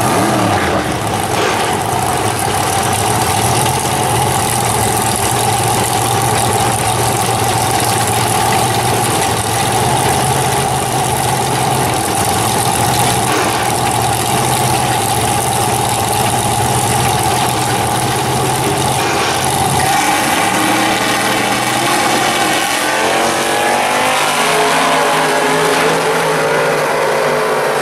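Two drag-race cars' engines running loudly at a steady idle while staged at the starting line, then near the end they launch, engine pitch climbing as they accelerate hard down the track.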